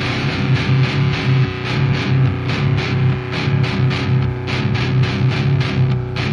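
Heavy metal music: distorted electric guitar over a fast, steady drum beat.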